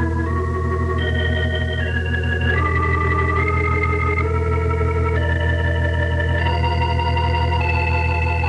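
Organ music bridge between scenes: held chords that change about once a second and climb higher, over a sustained low bass note.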